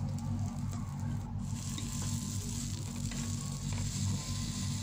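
Flatbread frying in oil in a pan, sizzling steadily, with a steady low hum underneath.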